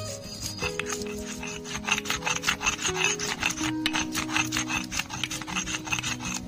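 Stone roller (nora) rubbed back and forth on a flat stone grinding slab (sheel), grinding green chillies and ginger into a wet paste with a little water: quick repeated rubbing strokes, one after another.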